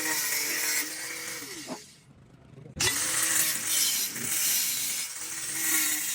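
Electric power tool running with a steady hum and a high hiss; its pitch slides down and the sound drops away about two seconds in, then comes back suddenly and runs on.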